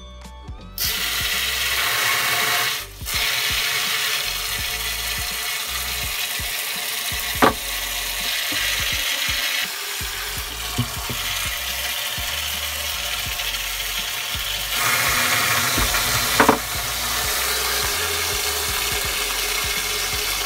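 Water pouring from the opened drain valve of a central-heating magnetic filter into a bucket as the heating system is drained: a steady rushing splash that starts about a second in, with a brief dip around three seconds and a couple of sharp knocks.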